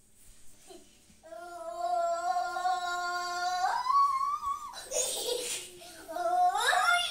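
A voice holding a long, steady note for about two and a half seconds, then jumping to a much higher pitch for about a second; a short breathy burst follows, then a call that sweeps sharply upward near the end.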